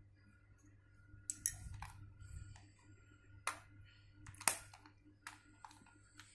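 Plastic makeup compact being handled and opened: a few light, sharp clicks and taps spread out, the loudest about four and a half seconds in.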